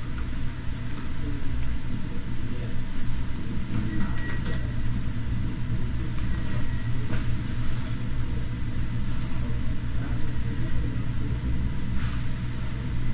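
Steady low rumble of room background noise, with a few faint clicks scattered through it.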